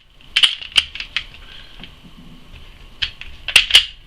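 Glock 26 pistol being handled in a safety check: sharp clicks and clacks of its working parts, three in the first second or so, then three more near the end, the last two close together.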